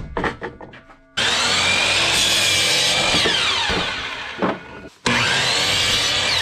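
Power saw cutting through red oak boards: two long cuts, each starting suddenly, the first about a second in and the second about five seconds in, with the pitch rising and falling as the blade loads. A few knocks of wood come before the first cut.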